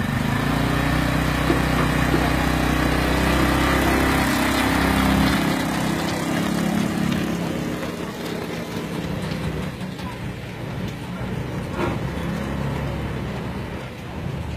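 A 150 cc single-cylinder four-stroke automatic ATV engine running as the quad pulls away and drives off. It is strongest in the first few seconds, then grows steadily fainter as the machine moves off.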